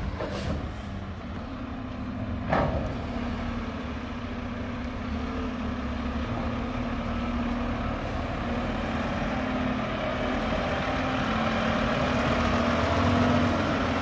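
Mack garbage truck's diesel engine running at low speed as the truck creeps along, growing slowly louder as it comes closer. A short hiss about half a second in and a single sharp clunk at about two and a half seconds.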